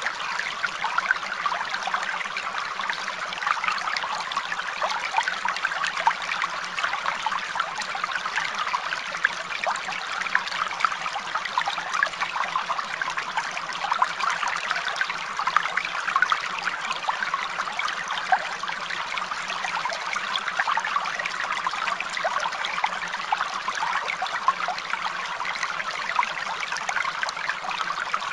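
Steady trickling of running water, like a small stream, going on evenly without change.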